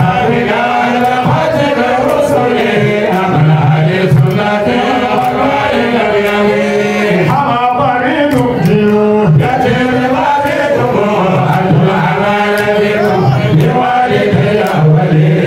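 A man chanting a religious song into a microphone, with long held and sliding notes, amplified through a sound system over a steady low sustained vocal tone.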